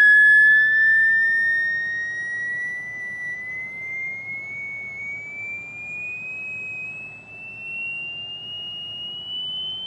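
Piezo element in a function-generator-driven coil circuit sounding the sine-wave drive signal as a high, annoying teapot-like whistle. It glides slowly and evenly upward in pitch as the frequency is turned up, and grows quieter over the first few seconds.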